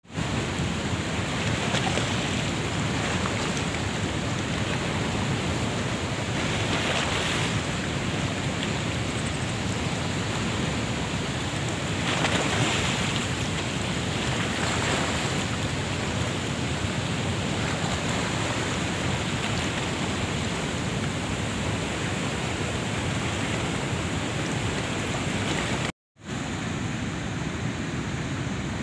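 Steady rush of a wide river below a dam, with small waves washing and splashing against the rocky bank, and some wind on the microphone. The sound cuts out for a moment near the end.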